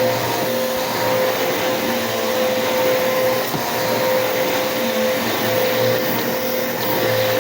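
Bissell PowerForce Bagless 6583 upright vacuum cleaner running steadily, a constant rush of air with a steady motor whine.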